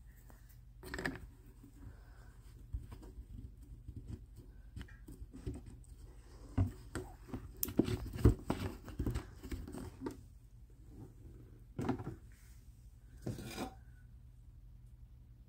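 Kitchen handling noises: scattered clicks, knocks and scraping, busiest in the middle, with louder clatters about a second in and near the end, over a low steady hum.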